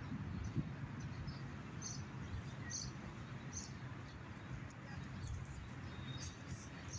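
Outdoor ambience: a steady low rumble with short, high bird chirps about once a second, and one soft bump about half a second in.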